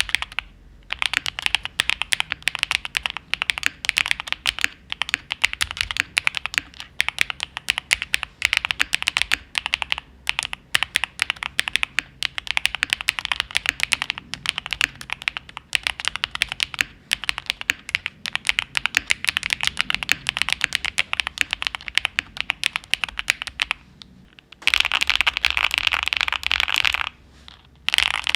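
Typing on a Cub65 custom keyboard with Cream Yellow Pro switches and GMK Bread keycaps: a steady stream of quick keystroke clacks. Near the end the keystrokes come in a fast, almost unbroken flurry, with short pauses before and after it.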